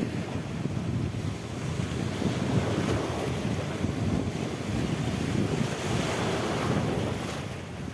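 Wind buffeting the microphone over the steady wash of small waves in shallow surf.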